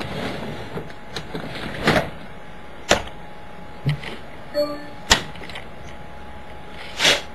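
A few scattered sharp clicks and knocks, about four loud ones a second or more apart, over a steady low hum, with a brief short tone about halfway through.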